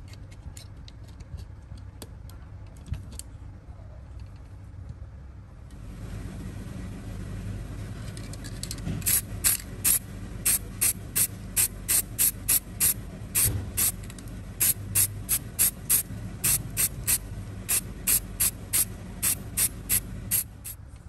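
Short hissing spray bursts, about two or three a second, over a steady low hum that starts a few seconds in. A few faint clicks come before the hum.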